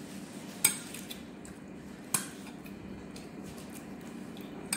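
Eating by hand from plates: two sharp clicks about a second and a half apart and a smaller one near the end, with faint light ticking in between, over a steady low hum.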